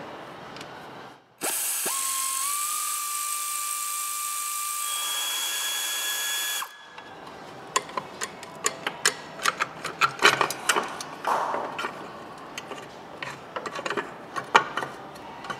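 A power tool runs for about five seconds, its pitch rising slightly as it spins up, then stops suddenly; after it come irregular metallic clicks and clinks of tools and engine parts being handled.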